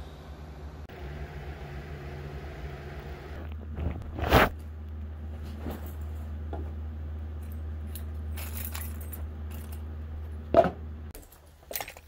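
Camera being handled and knocked about: two loud sharp knocks, about four seconds in and again near the end, with small clicks and rattles in between, over a steady low hum that stops shortly before the end.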